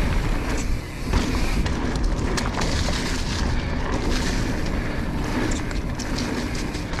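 Mountain bike rolling fast down a dirt flow trail: a steady rush of tyre noise with scattered knocks and rattles over bumps, under heavy wind noise on the microphone.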